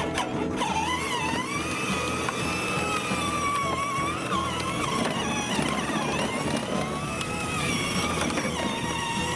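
Electric motors and gearbox of a 12-volt Tow Mater Power Wheels ride-on whining as it drives, the pitch slowly rising and falling with its speed.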